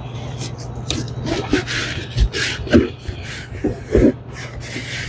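Handling noise at a rack of Flojet pumps: rubbing and scraping of hoses and plastic fittings with several dull knocks, over a steady low hum.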